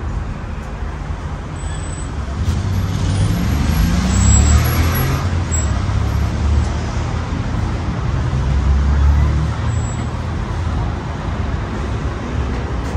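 Road traffic passing on the street: a low motor-vehicle engine rumble that swells with a rising engine note about four seconds in, and swells again around nine seconds.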